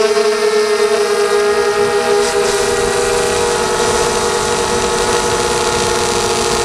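ZMR250 mini quadcopter's Sunnysky 2204 brushless motors and propellers whining steadily in flight, the pitch wavering slightly with throttle, over a rushing of air.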